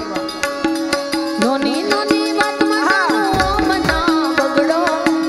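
Live Indian folk music: a harmonium plays a short repeated note over a steady hand-drum beat, with a gliding melodic phrase weaving above it around the middle.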